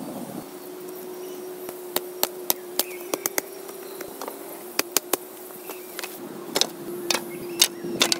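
Irregular sharp knocks of a hand tool striking wood, about a dozen strikes in small clusters. A steady faint hum runs underneath.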